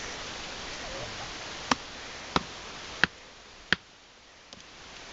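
A wooden stake being driven into dirt with a stone: four sharp knocks, evenly spaced about two-thirds of a second apart, starting a little under two seconds in.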